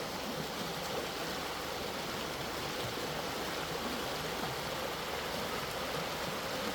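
A rain-fed creek running over rocks: a steady rushing of water with no breaks.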